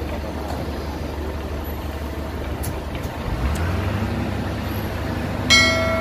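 Heavy diesel truck engine running with a steady low drone that steps up in pitch about three seconds in as it speeds up. Near the end a short, bright, ringing chime cuts in over it.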